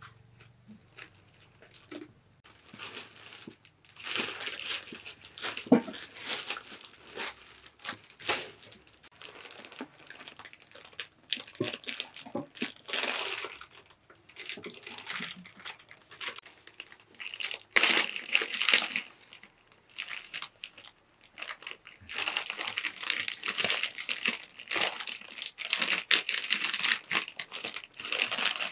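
Irregular crinkling and rustling with scattered clicks, coming and going in louder stretches: something dry or papery being handled close by.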